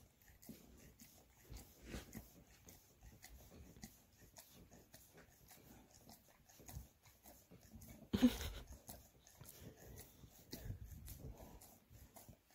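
Large Munsterlander dog licking over and over, faint wet tongue smacks and clicks. One brief louder sound from the dog about eight seconds in.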